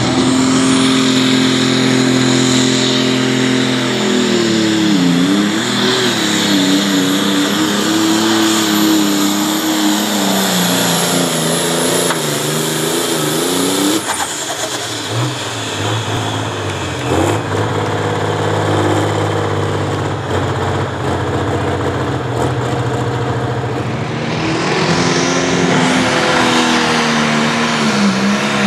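Turbocharged diesel engines of pro stock pulling tractors at full throttle, each dragging a weight-transfer sled, with a high turbo whistle over the engine. The engine pitch sags and wavers as the sled loads it down, then drops to a lower, steadier running about halfway through. A second tractor's engine climbs to full power near the end.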